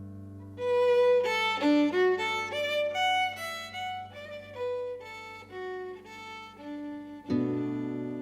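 Fiddle music: a held low note, then a quick run of separate notes moving up and down, and a fresh bowed chord struck firmly about seven seconds in.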